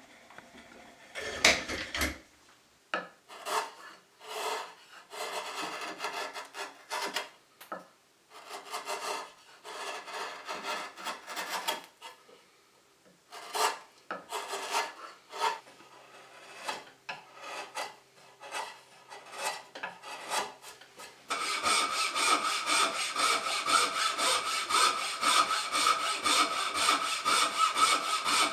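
Hand tools working tulip poplar: after a few sharp knocks, a chisel pares the end of a post in short, irregular scraping strokes with pauses. About three quarters of the way in, a bow saw takes over, cutting a tenon in steady back-and-forth strokes with a ringing blade.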